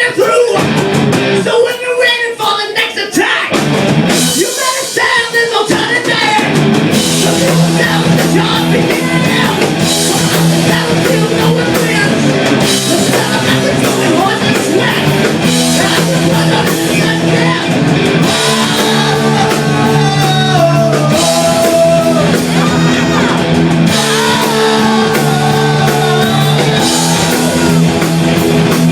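Loud heavy metal music with electric guitars and a drum kit. It comes in broken, with short gaps, for the first several seconds, then plays as a dense, steady band sound.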